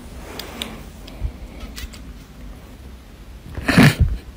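Domestic cat giving one short, sharp hiss near the end, with a low snort-like edge, after a few light clicks and rustles.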